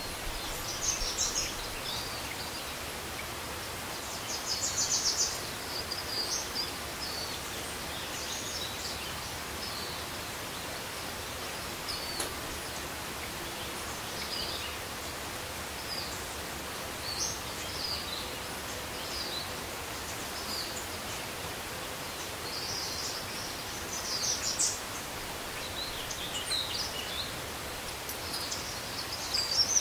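Short, high bird chirps scattered over a steady background hiss, busiest about five seconds in and again near the end.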